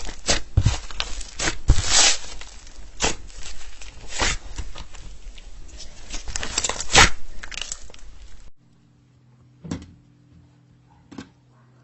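Slime being squeezed and poked in the hands, a dense run of crackles and pops that stops abruptly about eight and a half seconds in. After that, a faint steady hum with two soft clicks.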